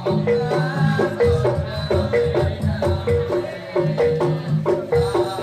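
Live jaranan gamelan music: struck bronze keyed and pot-gong instruments play a quick, repeating interlocking melody over drum strokes.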